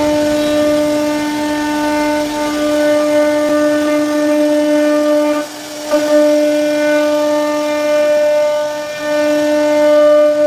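CNC wood router spindle running at a steady whine while its bit carves into a wooden panel. The whine drops out briefly a little past halfway, then returns at the same pitch.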